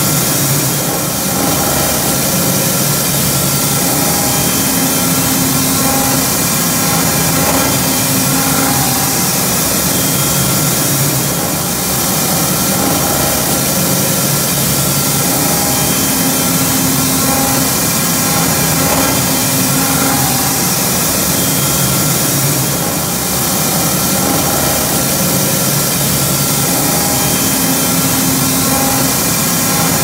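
Loud, steady machinery noise from hydraulic steering gear running: a constant hum made of several steady tones over a hiss, with no change or stop.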